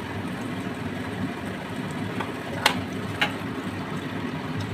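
Kutchina kitchen chimney (range hood) exhaust fan running with a steady hum. A couple of sharp clicks, as of a utensil against the pan, come a little past halfway.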